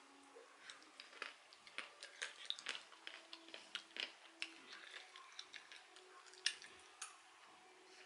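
Roasted peanuts being crunched and chewed: a faint, irregular run of crisp crunches, with a few louder ones near the middle and toward the end.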